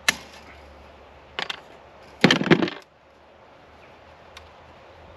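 High-tensile fencing wire being wrapped and handled against a timber strainer post: a sharp click at the start, a short clatter about a second and a half in, then a longer, louder rattle just after two seconds.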